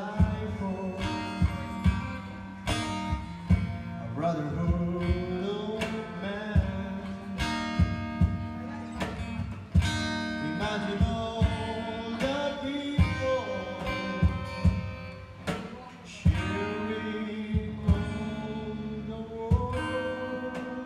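Background music: a song with plucked acoustic guitar, a steady beat and a sung melody.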